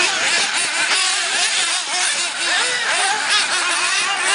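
Several 1/8-scale nitro RC buggy engines running together, their high-pitched whines rising and falling over and over as the buggies accelerate and back off.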